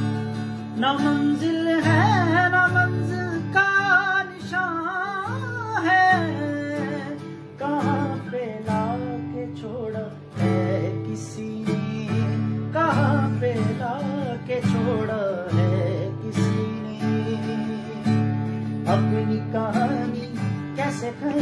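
Acoustic guitar strummed in a steady rhythm, accompanying a man singing long, wavering, ornamented vocal phrases that come and go over the chords.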